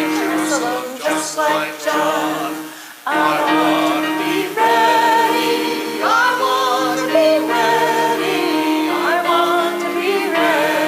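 Small church choir of a man and a woman singing a hymn over steady instrumental accompaniment, in phrases of about three seconds with short breaths between them.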